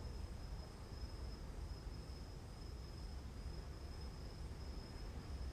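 A steady high-pitched insect-like trill, gently swelling and fading, over a low background rumble.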